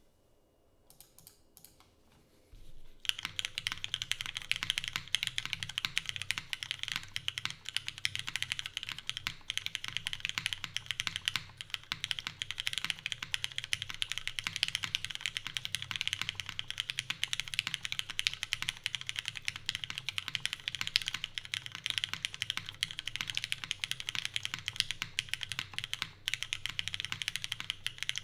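Typing on a Glare TKL mechanical keyboard with lubed and filmed Cherry MX Black clear-top linear switches in a full aluminium plate with no dampening foam, under CRP R4 keycaps. A few faint taps come first, then fast, continuous typing starts about three seconds in.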